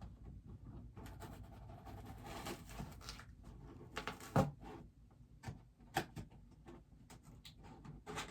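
A boxed bobblehead and its packaging being handled and opened: rustling and sliding from about one to three and a half seconds, one sharp knock a little over four seconds in, and scattered clicks and taps.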